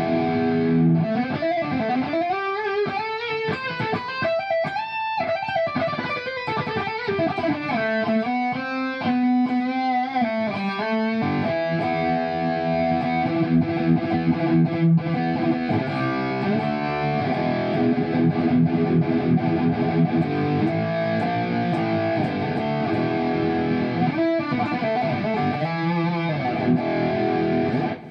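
Kiesel Vader electric guitar with Kiesel Polarity pickups played through an amp: bent, wavering lead notes, a quick run of notes, then sustained ringing chords, cut off at the very end.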